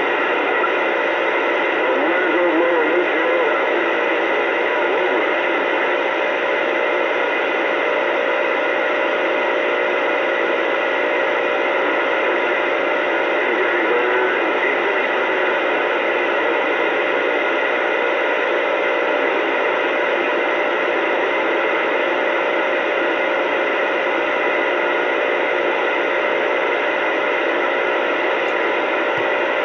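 CB radio receiver on AM, tuned to 27.285 MHz (channel 28), putting out a steady hiss of static and band noise through its speaker. A few faint steady tones sit under the hiss.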